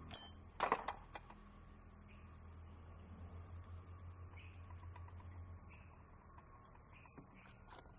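A few sharp metal clinks and knocks in the first second or so as steel hydraulic control-valve parts are handled and fitted together, then a few lighter ticks. A steady high-pitched insect chirring, like a cricket, runs underneath.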